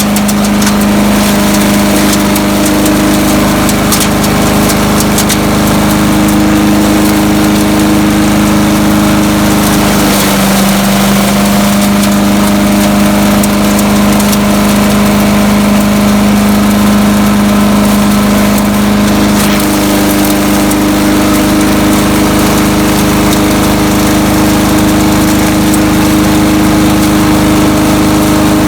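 Landworks 7 hp chipper shredder's petrol engine running steadily. Its pitch drops slightly about ten seconds in and comes back up near twenty, with scattered sharp clicks over the top.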